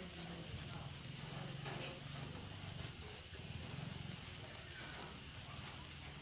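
Two handheld sparklers fizzing and crackling, over a steady low hum.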